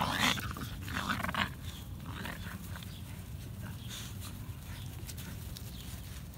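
American Bully mother and puppies play-fighting, with dog play sounds that are louder in the first second and a half and softer after.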